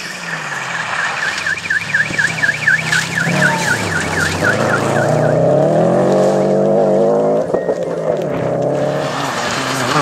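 A rally car's engine approaching at speed, getting steadily louder, its pitch climbing as it accelerates and dropping sharply about three quarters of the way through. Over the first half a high warbling tone repeats about four to five times a second, then stops.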